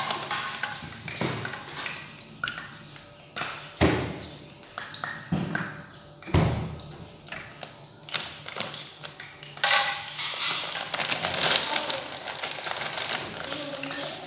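Plastic bag of dry macaroni crinkling as it is handled, with scattered light taps and knocks. Louder crackling comes about ten seconds in.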